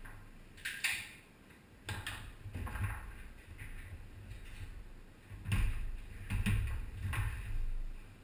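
Foosball play on a Tornado table: a series of sharp knocks and clacks as the ball is struck by the figures and hits the table, some with low thuds from the rods. There are about six knocks, spread unevenly, and the loudest cluster comes past the middle.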